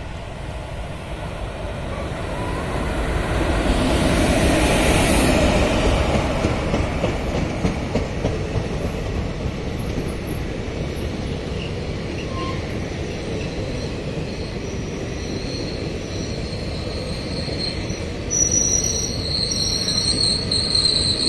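A WAP-4 electric locomotive hauling a passenger express passes at speed, loudest about five seconds in as it goes by. The coaches then roll past steadily, and a high-pitched wheel squeal sets in near the end.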